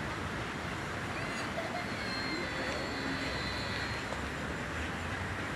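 Steady outdoor background noise, an even low rumble, with a few faint thin high tones from about one to four seconds in.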